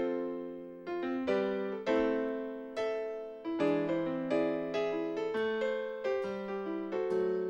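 Keyboard playing chords alone, about one struck chord a second, each left to ring and fade before the next.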